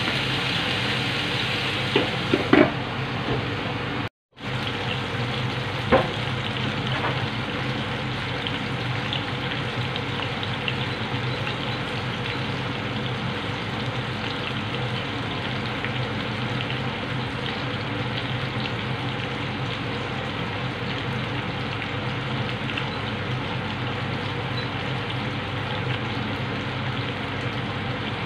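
Chicken drumsticks and thighs sizzling steadily in hot oil in a frying pan, with fine crackling, as they are half-cooked before baking. A few light clicks come in the first several seconds, and the sound cuts out for a moment about four seconds in.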